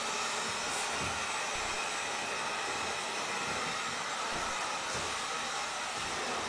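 Handheld electric heat gun running steadily, its fan blowing hot air over vinyl wrap to warm it so it grabs the board.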